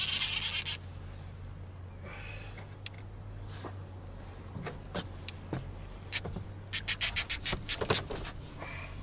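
Fishing rod and reel handled on a boat while a large catfish pulls: a short loud scraping rustle at the start, then a quick run of sharp clicks near the end, over a low steady hum.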